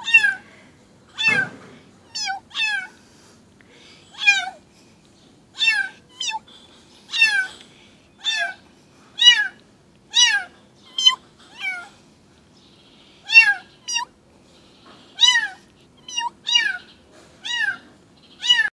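Tiny black-and-white kitten meowing over and over, about twenty short, high-pitched cries, each falling in pitch, roughly one a second: the distress crying of a lost, frightened kitten calling for its mother.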